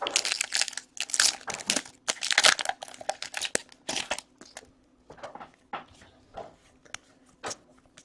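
Foil wrapper of a trading card pack crinkling and tearing as it is ripped open: dense crackling for about four seconds, then lighter, scattered rustles as the cards are pulled out of the wrapper.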